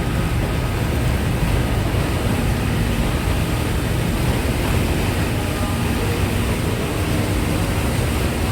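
Passenger ferry under way, its engines running with a steady low rumble under an even rush of noise.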